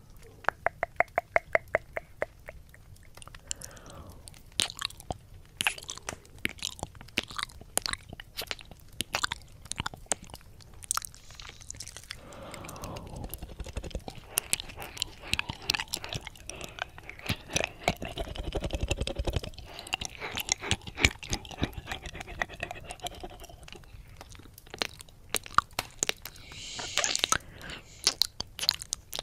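Close-up wet mouth sounds on a 3Dio binaural microphone's silicone ear: licking, smacking and clicking ASMR 'ear eating', opening with a quick regular run of tongue-flutter clicks. Soft breathy stretches come between scattered sharp wet clicks.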